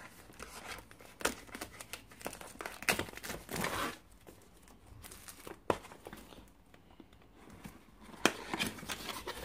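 A small folding credit-card knife cutting and tearing clear packing tape and cardboard packaging, with scattered clicks and scrapes of boxes being handled. A longer stretch of tearing comes about three seconds in.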